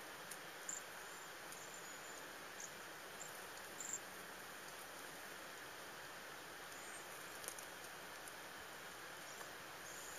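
Cedar waxwings calling: short, thin, high-pitched notes, several in the first four seconds and a few more later, over a faint steady hiss.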